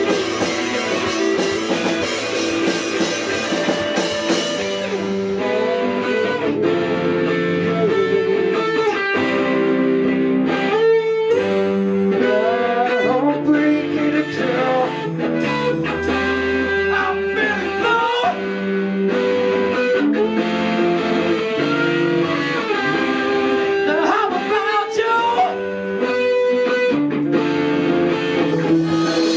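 Live rock band playing, with guitar to the fore and notes bending in pitch, over bass and drums.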